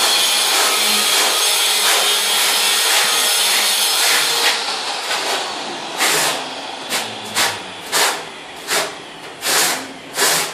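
Steel notched trowel scraping tile adhesive across the back of a 60 × 60 cm polished floor tile, back-buttering it before laying. There is steady scraping for the first four seconds or so, then about seven separate strokes, roughly one every 0.7 s, as the adhesive is combed into ridges.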